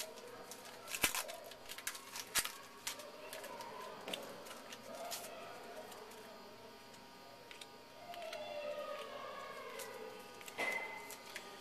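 Trading cards being handled and flipped through by hand, with a few light clicks and rustles, under faint background talk.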